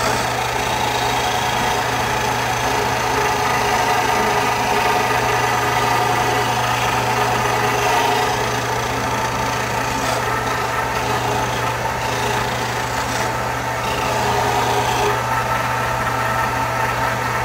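A Grizzly H192 belt and disc combo sander running steadily on its 1/3 hp motor, with a steady hum, while a wooden board is sanded against its spinning 8-inch disc. The abrasive grinds at the wood and the sound swells slightly as the board is pressed in.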